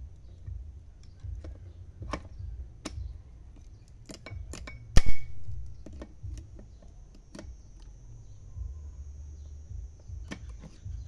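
Circlip pliers working a steel snap ring into the bore of a Kubota HST pump housing: scattered small metallic clicks and taps, with one sharp, loud metallic click and a brief ring about five seconds in. A steady low hum runs underneath.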